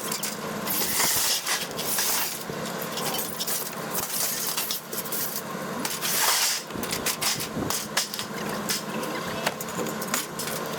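Scrap metal being unloaded and dropped onto a pile: repeated irregular clanks, knocks and rattles of metal pieces, over a steady engine hum.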